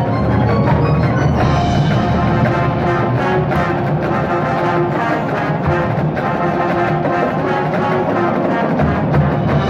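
High school marching band playing, brass holding chords over steady percussion strokes.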